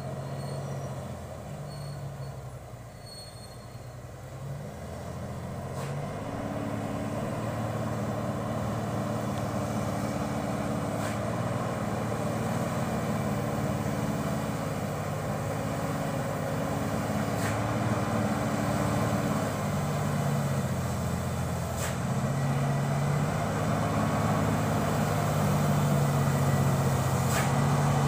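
Loaded Mitsubishi Fuso Super Great logging truck's diesel engine coming slowly downhill toward the listener, growing steadily louder, its engine note stepping up and down in pitch as it crawls over the rough, potholed road.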